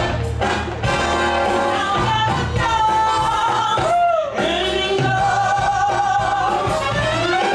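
A woman singing a USO-style show tune on stage over backing music, holding long notes, one of them sliding down in pitch about four seconds in.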